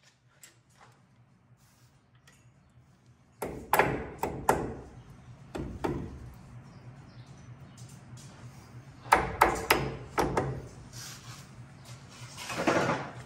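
Hammer driving a brake pad retaining pin through a front brake caliper with a drift, in sharp metal strikes: a quick group of three or four about three and a half seconds in, a single one near six seconds, and another group of four or five around nine to ten seconds. A short noise follows near the end.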